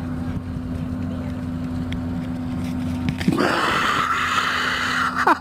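Wind rumbling on the microphone with a steady low hum underneath; about three seconds in, a loud, breathy, high shriek rises over it and breaks into short falling cries at the very end.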